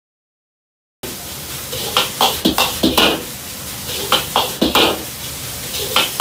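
After about a second of silence, a ladle strikes and scrapes against a wok in quick clusters about every two seconds, over a steady sizzling hiss: fried rice being stir-fried.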